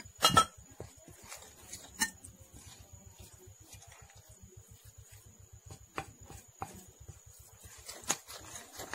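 A spoon knocking and clinking against a bowl a few times as two more spoonfuls of wheat flour go into a flour-and-water batter, the loudest knock right at the start and the rest scattered and light.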